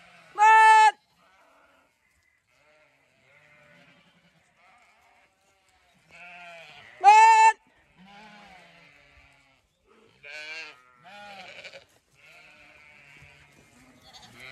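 Zwartbles sheep bleating: two loud, clear bleats, one just after the start and one about seven seconds in, with several fainter bleats from the flock between them.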